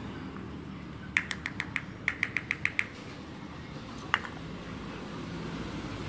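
Lovebird giving short, sharp chirps in two quick runs of five or six, about eight a second, then one more chirp over a second later.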